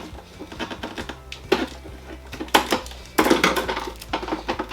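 Plastic water tank of a hOmeLabs 50-pint dehumidifier being pulled out of the unit: a series of plastic clicks, knocks and scraping, busiest a little past the middle.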